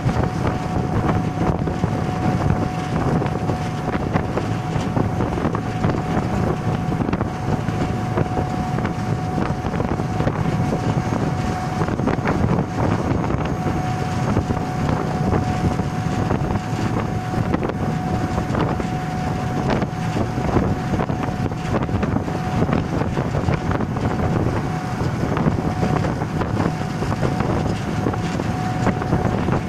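HarbourCat ferry's diesel engines running steadily under way, with wind buffeting the microphone and a steady high whine over the engine noise.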